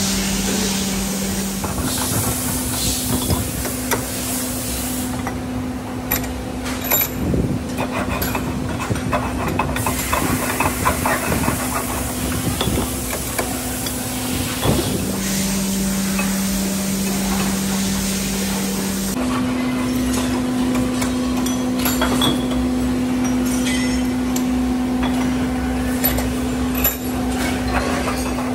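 Hand file scraping over an aluminium motorcycle wheel hub casting clamped in a bench vise, with short metal clicks and clinks. A steady machine hum runs underneath and changes pitch a few times.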